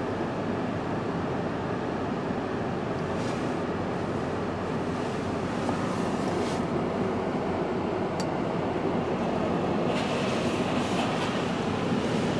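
Automatic car wash running, heard from inside the car: a steady rushing of water and machinery that grows a little louder in the second half.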